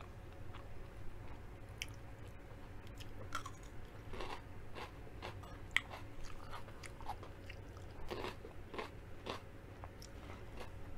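Close-mic mouth sounds of biting and chewing a crunchy raw vegetable stick, with a run of sharp crisp crunches starting about three seconds in. A steady low hum runs underneath.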